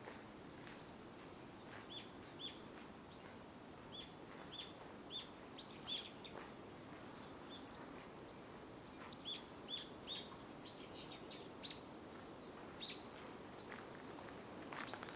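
Wild birds chirping: a quick series of short, high chirps, each dipping slightly in pitch, coming in two runs with a short lull between, over a faint steady outdoor hiss.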